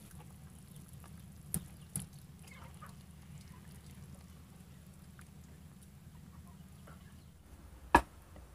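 Wooden ladle stirring a stew in a clay pot, knocking against the pot twice lightly about a second and a half in, then once sharply near the end, over a low steady hum.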